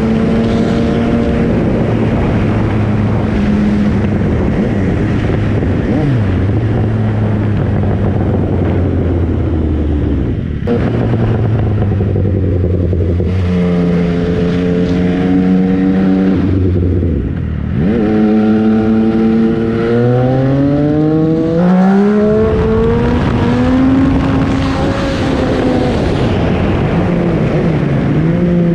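MV Agusta Brutale 800's three-cylinder engine under way. It runs at steady revs for the first dozen seconds, then in the second half accelerates in rising sweeps of pitch with brief drops between them.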